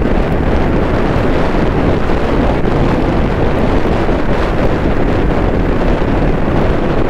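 Loud, steady wind rush buffeting the microphone of a motorcycle rider at speed.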